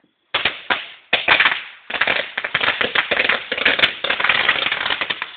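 Homemade firework device going off: a few sharp pops, then about three and a half seconds of dense, rapid crackling.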